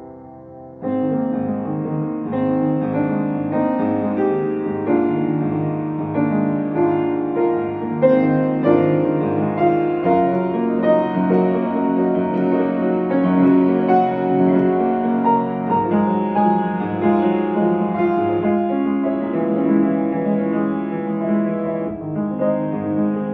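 Solo piano playing a steady stream of sustained notes and broken chords; a fading chord gives way to fresh playing just under a second in.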